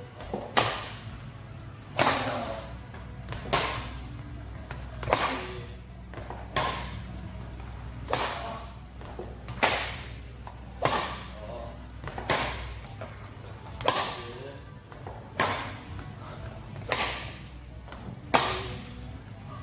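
Badminton rackets striking a shuttlecock in a rally of long clears, a sharp crack about every one and a half seconds.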